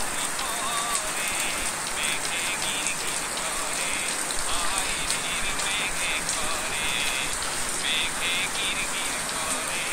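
Steady rain falling on the ground and foliage, a constant even hiss. Short wavering chirps repeat over it throughout.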